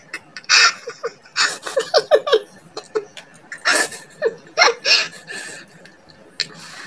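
A woman laughing in short breathy bursts, with a quick run of ha-ha pulses about a second and a half in.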